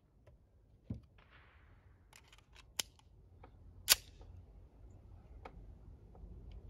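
Several sharp metallic clicks and clacks of a 9 mm double-stack pistol, a Cosaint Arms COS21 V10, being handled and readied to fire. The loudest click comes just under four seconds in.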